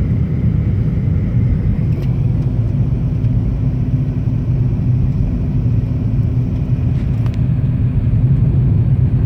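Car cabin road noise while driving: a steady low rumble of engine and tyres on the road, with a faint thin tone held throughout and a couple of light clicks.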